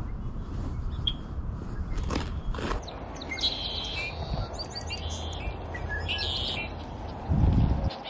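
Small birds calling and singing, a few short patterned phrases in the middle, over a steady low rumble of wind on the microphone; a brief louder buffet of wind near the end.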